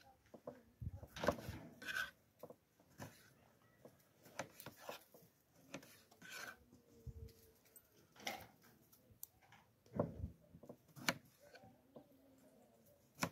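Quiet handling noises: scattered light clicks, knocks and rubbing, with the sharpest knocks about ten and eleven seconds in.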